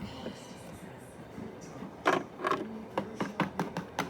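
Small plastic toy figures and playset pieces being handled and set down. About two seconds in there is a run of light clicks and taps, several a second.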